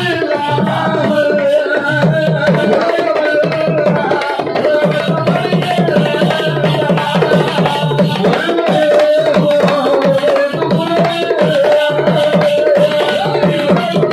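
Kaniyan koothu folk music: a fast, steady drumbeat under a held, wavering melodic line that goes on without a break.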